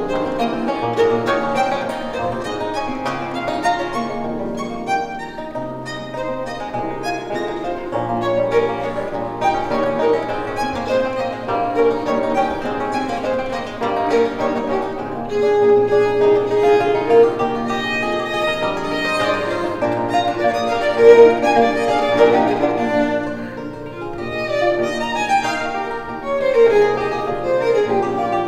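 Baroque violin and a long-necked baroque lute with extra bass strings playing a duet: the violin is bowed over plucked lute accompaniment.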